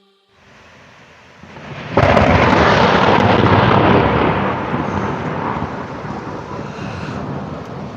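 Rain falling, then about two seconds in a loud, close clap of thunder breaks out and rumbles on for a couple of seconds before slowly fading under the rain.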